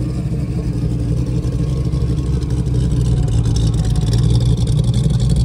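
Classic first-generation Ford Mustang hardtop's engine running at low revs as the car drives slowly past, a steady low engine note that grows a little louder about halfway through.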